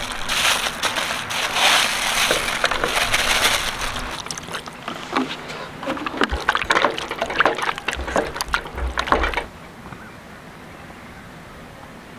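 Plastic bag crinkling and wet raw meat squelching as the pieces are tipped from the bag into a steel pan, followed by a run of small clicks and knocks. The handling stops about nine and a half seconds in, leaving only faint steady background.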